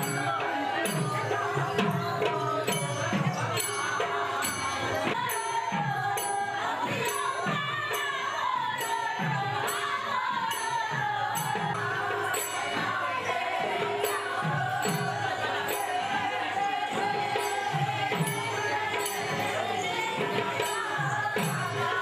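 Live devotional music for a Manipuri Raas Leela dance: voices singing a wavering melody over a steady held note, with low drum strokes that drop in pitch about twice a second and small cymbals clicking in time.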